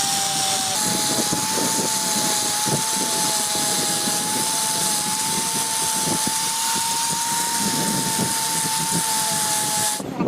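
Compressed air rushing with a loud hiss and a steady whistling tone, as in a tyre tube being inflated or deflated. It cuts off sharply near the end.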